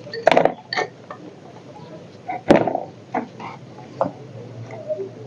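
A few sharp clicks and knocks of small hard objects being handled, the loudest about two and a half seconds in, over a low steady hum.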